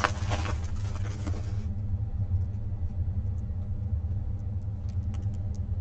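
Plastic film crinkling as a diamond painting canvas is handled, for the first second and a half or so, then a few faint ticks, over a steady low rumble.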